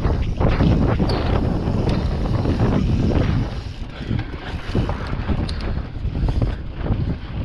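Wind buffeting the microphone of an on-board camera on a mountain bike being ridden on a dirt trail, mixed with irregular rattles and knocks from the bike over rough ground. The wind noise eases about halfway through.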